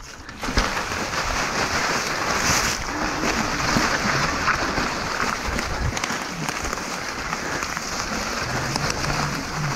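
Mountain bike riding over a loose, rocky trail: steady crunch of tyres on gravel and dirt with scattered knocks and rattles from the bike, picking up about half a second in.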